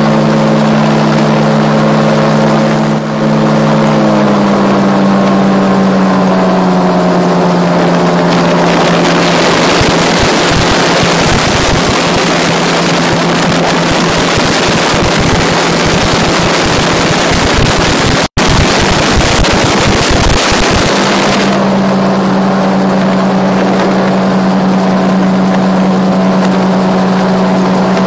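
RAF 2000 gyroplane's engine throttled back, its pitch falling about four seconds in. From about ten seconds the engine note fades under a loud rush of wind and rotor noise, as in a power-off engine-out glide. About twenty-one seconds in, the engine comes back up to a steady note.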